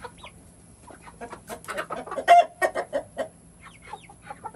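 Chickens clucking around their feed, short quick calls throughout, with a dense burst of louder calls in the middle, loudest about halfway through.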